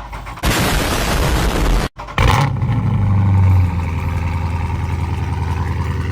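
Tuned Dodge 392 Daytona's 6.4-litre HEMI V8 cold-starting after sitting two days. A loud flare lasts about a second and a half and breaks off sharply; a second short burst follows, and the engine settles into a steady high idle that drops a step about three and a half seconds in.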